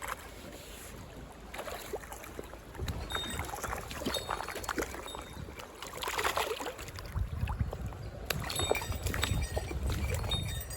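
Water sloshing and splashing with rustling and small knocks close to the microphone, heavier in the second half.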